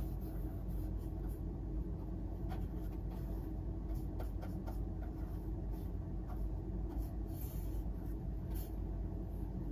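Paintbrush strokes scratching lightly across a textured canvas as acrylic paint is laid on, a string of short faint scrapes over a steady low hum.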